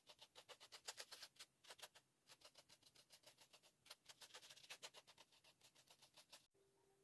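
Paint brush dabbing and scratching paint onto carved styrofoam: a run of faint, quick, crisp strokes, about six a second, with short pauses between runs.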